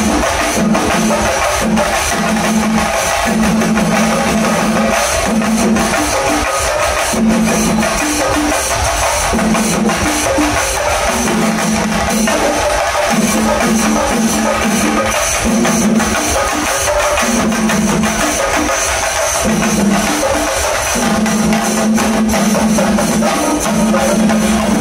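Shingari melam: a troupe of chenda drums beaten in a fast, dense rhythm together with ilathalam cymbals, over a low tone that breaks on and off in a repeating pattern.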